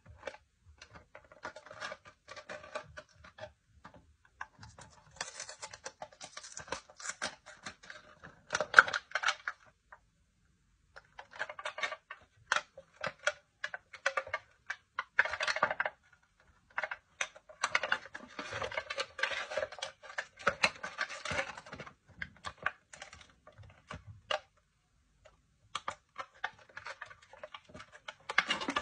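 Plastic chocolate-toy shell wrapped in gold foil being handled and pried open by hand: bursts of crinkling and clicking with short pauses, and one sharp click about nine seconds in.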